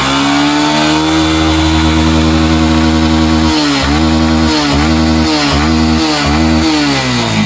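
Small motorcycle engine revved and held at a steady high speed. From about halfway in, the revs dip and pick up again several times, then drop back toward idle near the end. The engine is being revved to check the charging voltage with a newly fitted rectifier.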